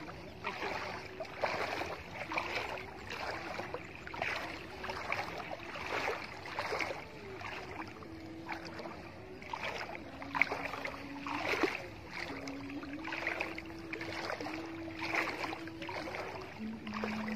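Water sloshing and splashing in regular strokes, about one a second, as a person wades through knee-deep water.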